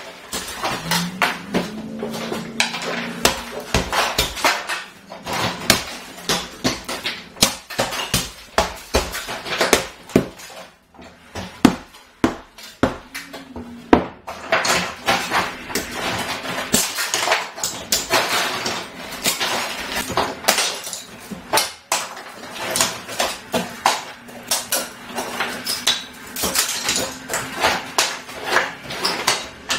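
Plaster and the wooden boards behind it being torn off an interior wall: irregular cracking, knocking and crunching, with broken pieces clattering to the floor.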